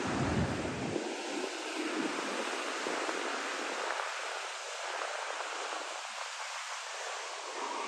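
Ocean surf breaking and washing up a sandy beach, a steady rushing hiss of water. A brief low rumble of wind on the microphone comes in the first second.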